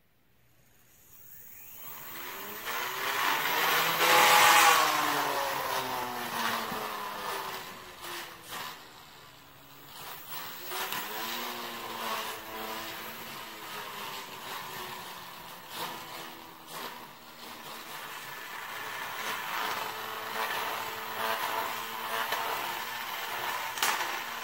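Vertical spinner weapon of a 150-gram fairyweight gyro-walker combat robot spinning up about two seconds in to a whine that rises and falls in pitch as the spinner is tilted to make the robot walk. It is loudest about four seconds in, with scattered knocks as the robot clatters over the concrete floor.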